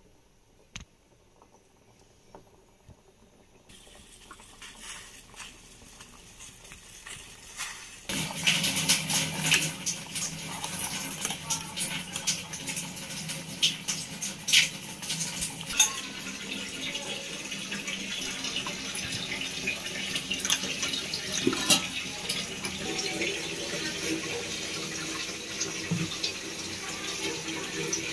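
A steel pot of dried peas boiling hard on a gas burner: a steady bubbling hiss full of crackles, which comes up strongly about eight seconds in after a quieter start. A few sharp clicks stand out above it.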